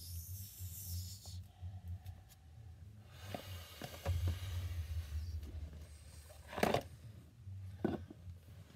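Dolls and a plastic toy jeep being handled and moved about: rustling and scraping with a few light knocks, the two loudest near the end, over a low steady hum.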